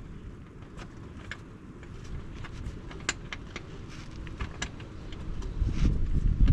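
Scattered light clicks and taps of small metal parts being handled as the oil drain plug with its spring and screen is fitted back by hand, over a low rumble. A louder low rumble swells near the end.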